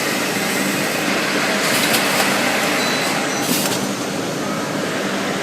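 Automatic rotary cookware inside-sanding machine running: a steady hum with dense abrasive grinding noise, and short hissing bursts about two and three and a half seconds in.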